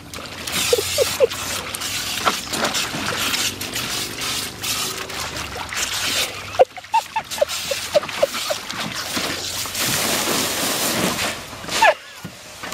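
Garden hose water spraying and splashing into a plastic kiddie pool as a black Labrador bites and splashes at the stream. Runs of short high squeaks come about a second in and again from about 7 seconds in.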